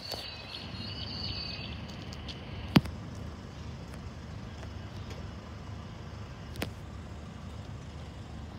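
Steady low outdoor rumble, with a sharp click about three seconds in and a fainter click near seven seconds. Faint high-pitched tones sound in the first second and a half.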